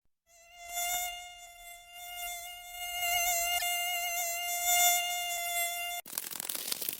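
Mosquito's wing whine: one steady high-pitched hum with a slight waver, fading in just after the start and cutting off suddenly about six seconds in. A dense crackling, scraping noise takes over in the last second.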